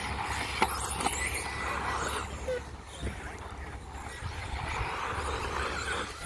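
Electric 1/10 two-wheel-drive off-road RC buggies racing on an artificial-grass track: a mix of motor whine and tyre noise that swells and fades as the pack passes, with a couple of sharp knocks about a second in. Wind rumbles on the microphone underneath.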